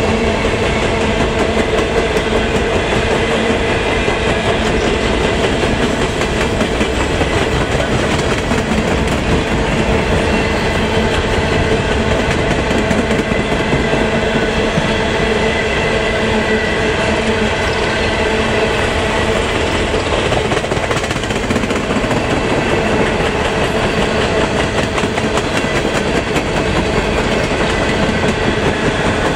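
Norfolk Southern coal hopper cars rolling past at a steady, unbroken level, their steel wheels running over the rails.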